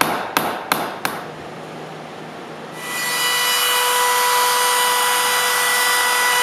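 A wood chisel struck four times, about three blows a second, chopping the outline of a hinge mortise into a door jamb. About three seconds in, a handheld router spins up to a steady high whine and runs on, routing out the hinge recess in the jamb.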